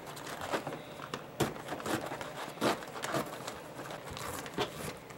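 Embroidery stabilizer being torn and peeled away from stitched fabric by hand: irregular crinkling and rustling with a few sharper tearing snaps.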